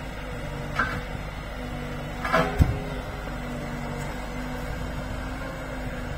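Road-rail excavator's diesel engine running steadily as its bucket works at a torn-up level crossing, with a clank just under a second in and a louder cluster of metallic knocks ending in a heavy thud a couple of seconds later.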